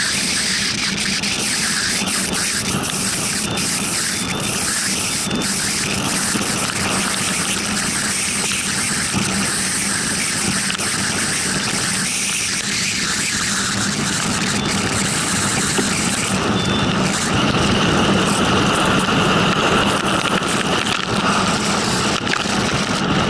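Steady road and wind noise with an engine hum, heard from inside a moving vehicle, growing a little louder about 17 seconds in.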